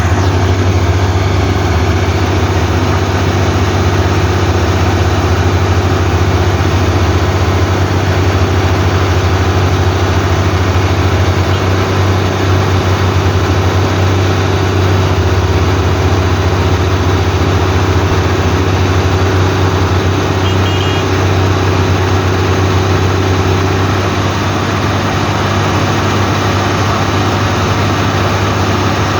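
Heavy diesel engine of an excavator or bulldozer running steadily with a deep, even hum, easing slightly near the end.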